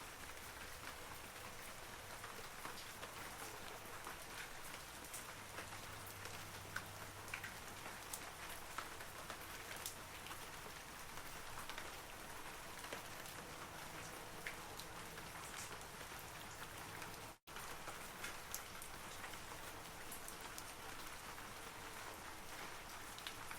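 Steady rain falling on forest trees: an even hiss with many separate small droplet ticks, briefly cut to silence for a split second about two-thirds of the way through.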